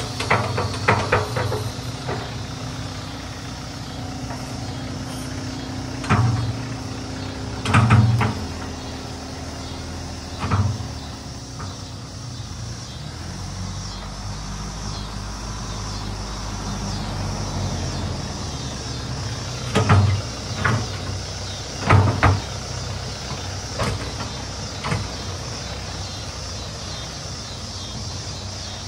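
John Deere 5100E tractor's diesel engine running steadily as it works with its front loader. Several loud clunks and knocks stand out above the engine, clustered around a second, six to ten seconds and twenty to twenty-two seconds in.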